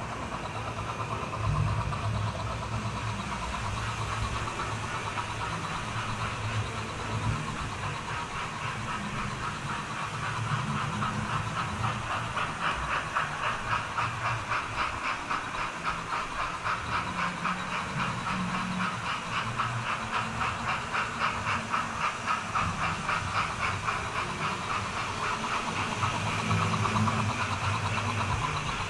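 Model railway locomotives running on the layout: a steady low motor hum with the running noise of wheels on track. From about ten seconds in, a rhythmic pulsing of about two to three beats a second rises over it, then eases off near the end.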